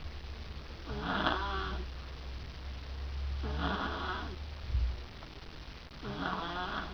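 A sleeping person snoring: three rattling snores, about one every two and a half seconds. A short low thump comes about two-thirds of the way through.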